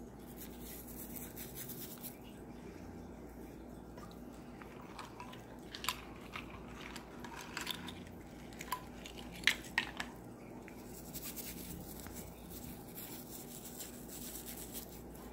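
Metal charm bracelets and rings being rubbed and scrubbed in soapy hands over a ceramic bowl of soapy water: soft wet rubbing and scratching, with about half a dozen sharp clicks of metal jewelry knocking together in the middle.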